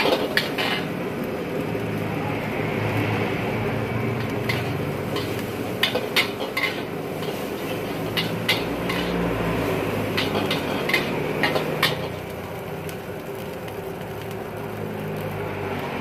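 Metal ladle clanking and scraping against a steel wok as fried rice is stir-fried, in sharp clusters of strikes near the start, around five to seven seconds in and around ten to twelve seconds in, over a steady low rumble.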